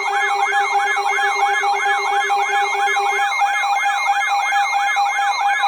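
Electronic warning siren yelping, its pitch sweeping up and down about four times a second over steady held tones. It sounds as an alert before an Emergency Alert System marine warning. A lower steady tone beneath it drops out about three seconds in.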